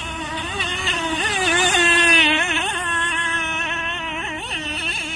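Radio-controlled speedboat's motor running at high revs as the boat races across the water: a high whine that keeps wavering up and down in pitch, loudest about two seconds in.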